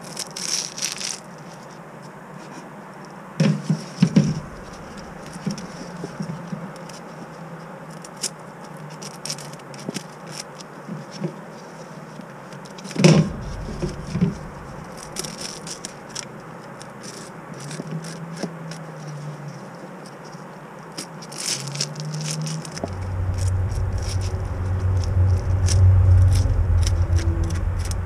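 A metal spoon scraping the scales off whole redear sunfish: a run of quick scratchy scrapes and clicks, with a few louder knocks. A loud low rumble comes in near the end.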